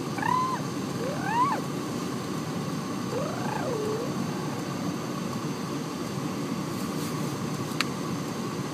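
Cat meowing three times: short arching, rising and then lower rise-and-fall calls, over a steady low background hum, with a single click near the end.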